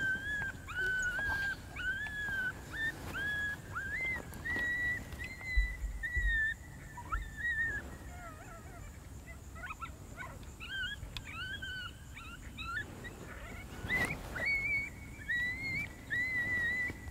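A long series of high, wavering coyote-style whimpers and yips, one call after another, fainter in the middle and stronger again near the end. A couple of low thumps sound about six seconds in.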